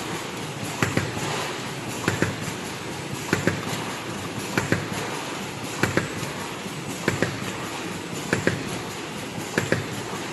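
Stick pouch making machine running steadily, with a double clack about every second and a quarter over a constant mechanical whir.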